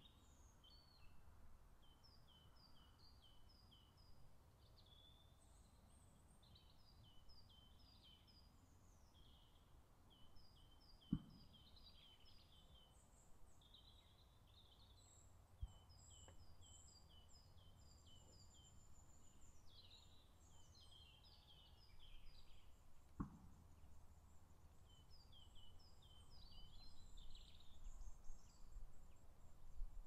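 Faint songbirds singing: phrases of short, high, repeated notes, over a low steady rumble. A few sharp clicks stand out.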